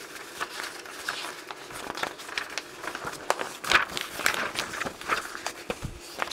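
Printed paper pages rustling and crinkling as they are handled and shuffled, with scattered light clicks and taps.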